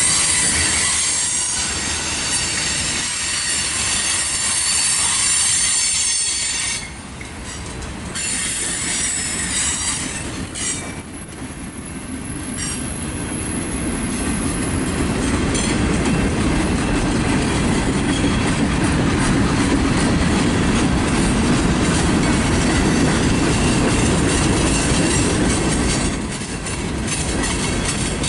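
Freight cars rolling past on steel rails, with a high-pitched squeal of wheels on the rails over the first several seconds. After about twelve seconds a heavier, steady rumble of wheels and cars builds.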